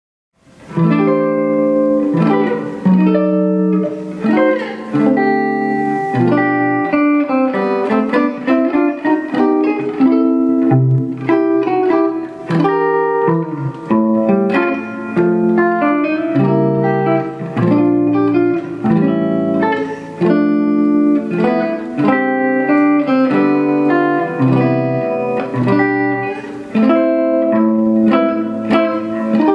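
Solo hollow-body archtop electric guitar playing an instrumental tune, several notes sounding together with a melody on top. It starts after about half a second of silence.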